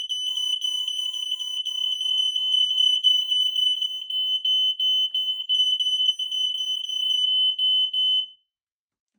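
Smoke alarm sounding on test: one steady, high-pitched tone that cuts off suddenly about eight seconds in.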